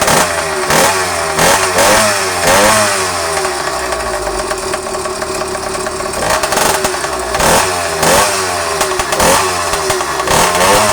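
YD100 two-stroke motorized-bicycle engine idling, blipped repeatedly with quick throttle revs that rise and fall in pitch, several in the first three seconds and another run from about six seconds on.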